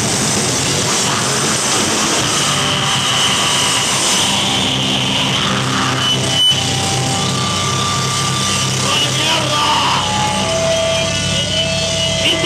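Live metal band playing loud: distorted electric guitars, bass and drums with cymbals in a dense wall of sound. About six and a half seconds in there is a sharp hit, after which held notes ring on over the band.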